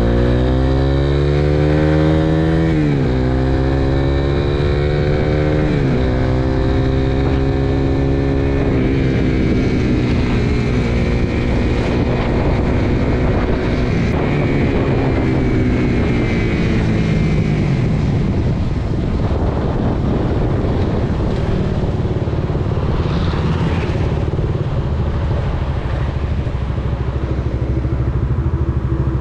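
Suzuki Raider 150 Fi single-cylinder motorcycle engine under hard acceleration. Its pitch climbs and drops at two quick upshifts, about three and six seconds in, then holds briefly. It then winds down slowly as the bike slows, settling into a low, steady run.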